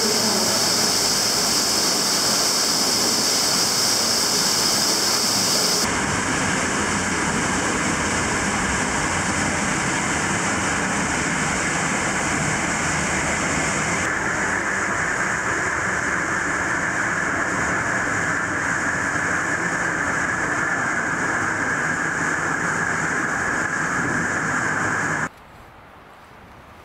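Loud, steady rush of a stream of water cascading through a narrow cave passage. The rush changes tone abruptly twice, then falls away near the end to a much quieter steady hiss.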